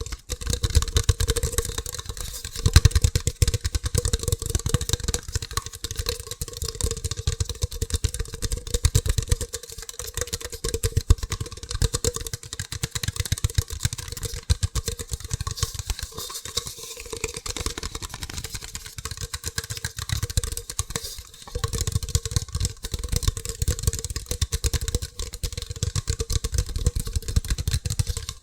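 Very fast, aggressive fingertip tapping on hard objects: a dense, unbroken rattle of taps, with brief breaks about ten, sixteen and twenty-one seconds in.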